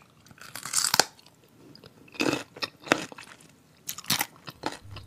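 A person chewing food close to the microphone: a string of irregular crisp crunches with short gaps between bites.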